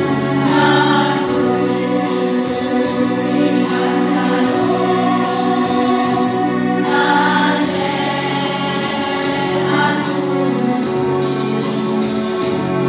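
Children's choir singing in unison over a steady instrumental accompaniment. The voices come in about half a second in and continue in phrases.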